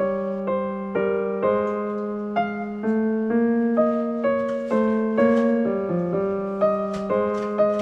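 Background piano music: a calm piece of steady single notes and chords, about two to three a second.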